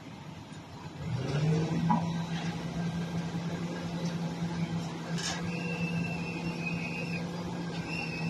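Grapple loader truck's engine speeds up about a second in and then runs at a steady higher speed as the hydraulic knuckle boom swings the empty grapple. A high-pitched whine comes and goes twice in the second half.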